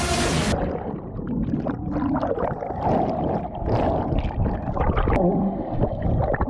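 Muffled underwater gurgling and bubbling, water churning around a camera held beneath the surface of a swimming pool. A dramatic film soundtrack cuts off about half a second in.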